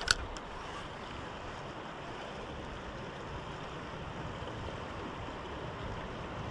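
Steady rush of flowing river water over a shallow, stony riffle. Right at the start there is a sharp click from the spinning reel being handled, and a fainter one just after.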